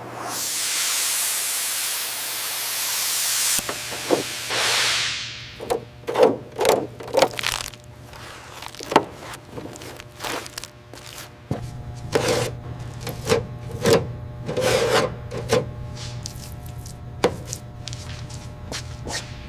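Workshop work on a metal airframe: a hiss lasting a few seconds, a shorter second hiss, then a long run of irregular knocks and taps over a steady low hum.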